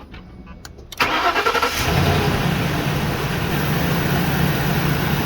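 A few light clicks, then about a second in a car engine is cranked and starts, catching within a second and settling into a steady idle.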